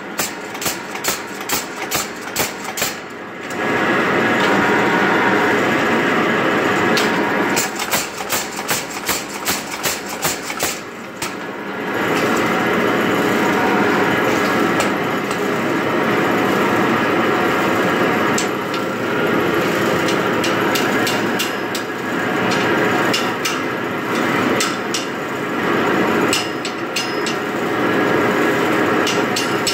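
Mechanical power hammer striking hot steel bar stock as it is drawn out. The blows come separately, about two or three a second, near the start and again around eight to eleven seconds in. In between, the hammer runs in long stretches of fast, continuous pounding.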